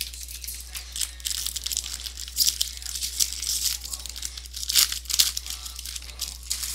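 Wrapper of a Topps baseball card jumbo pack being torn open and peeled off the cards, a dense crinkling crackle with louder crinkles a little past two seconds and again around five seconds.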